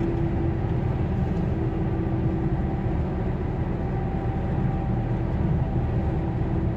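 Truck cab interior noise while cruising on a motorway: a steady low engine drone and road rumble with a constant hum, heard from inside the cab.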